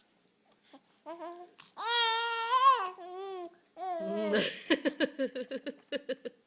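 Young child's wordless vocalizing: a long, high, wavering call about two seconds in, then a run of quick repeated syllables in the second half.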